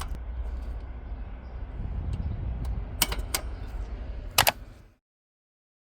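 A few sharp mechanical clicks over a steady low rumble; the loudest is a double click about four and a half seconds in. The sound then cuts out abruptly to silence.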